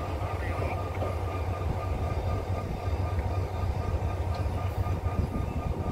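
O-train diesel railcar pulling away from the station, its engine and running gear a steady low rumble.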